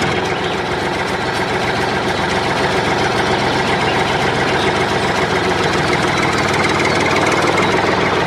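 A motor running steadily with a fast, even rattle.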